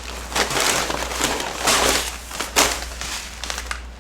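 Freeze-dried meal pouches crinkling and rustling as they are dug through and handled, in a string of scrunching bursts.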